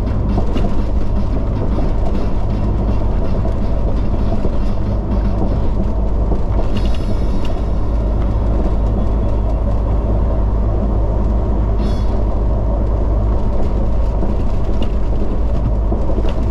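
Steady low engine drone and road noise from inside a vehicle driving on a highway. A short higher-pitched noise cuts in about seven seconds in and again about twelve seconds in.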